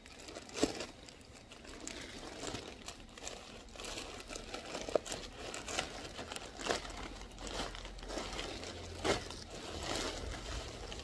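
Plastic poly mailer bag being pulled open and handled: irregular crinkling and rustling, with a few sharper crackles.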